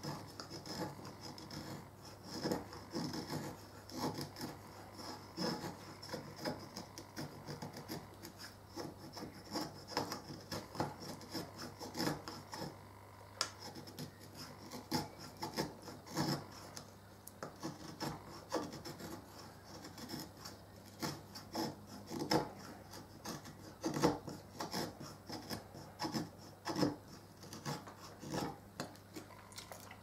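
A flat-ground D2 steel fixed-blade knife (LT Wright Patriot) shaving curls off a stick of wood, a short scraping rasp with each stroke, repeated irregularly about once a second. The cuts are a sharpness test of the new edge.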